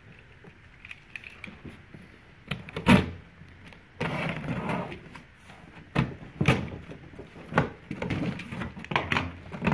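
A large box being opened and handled: a loud knock about three seconds in, then steady rustling with several sharp knocks and scrapes as the flaps and contents are moved.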